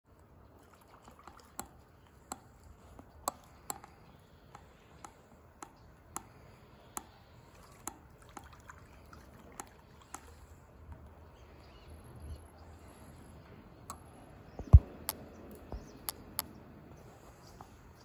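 Sharp, irregular ticks or drips about once every half second to a second over a faint steady hiss, with one louder knock about three-quarters of the way through.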